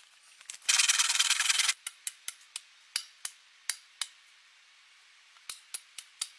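A loud rough rasping scrape for about a second, then a run of sharp knocks, about eight in two seconds, a pause, and five more near the end: a small hatchet striking at the base of an upright wooden pole.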